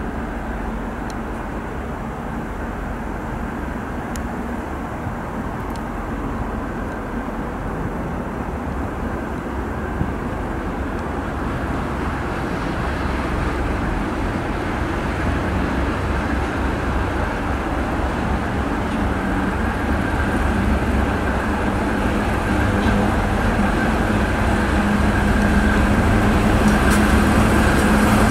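ChME3T shunting diesel locomotive, with its six-cylinder K6S310DR diesel engine, running as it draws a freight train toward the listener. It grows steadily louder, a low engine hum under the rail noise, and a steady high whine joins in the last few seconds.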